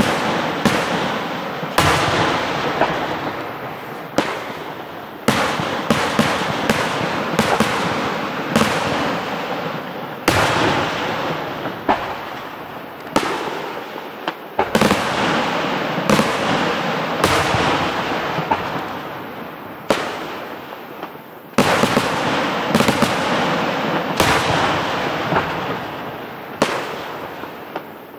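Aerial fireworks display: a rapid, continuous series of shell bursts, sharp bangs every second or so with crackling between them, and heavier booms about two, four, five, ten, fifteen and twenty-one seconds in.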